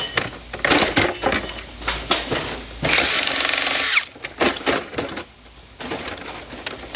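Metalworking noises: a run of sharp knocks and scrapes, with a power tool running for about a second around three seconds in, then lighter clicks.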